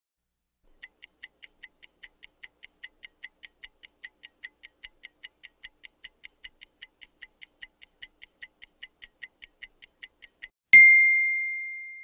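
Mechanical microwave oven timer ticking evenly, about five ticks a second, then a single loud bell ding near the end that rings out and fades: the timer running down and the bell signalling that the cooking is done.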